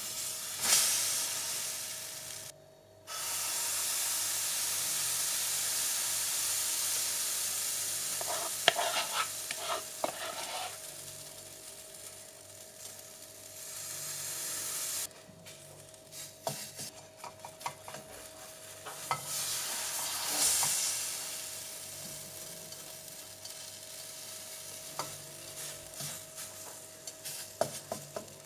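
Food sizzling as it fries in a pan, with short clicks and scrapes of stirring, over a steady faint hum. The sizzle breaks off abruptly about three seconds in, then starts again at once.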